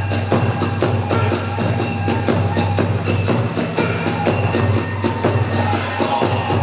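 Kagura accompaniment: taiko drums and tebyōshi hand cymbals beat out a fast, steady rhythm, with a flute melody held above.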